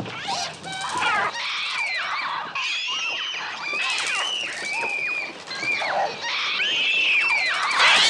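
A flock of gulls shrieking and squawking in many overlapping, falling cries, the film's electronically made bird sounds, with children screaming among them.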